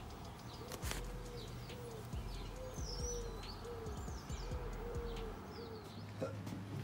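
Birds calling: a run of short, low, repeated notes through most of the stretch, with scattered high chirps over them.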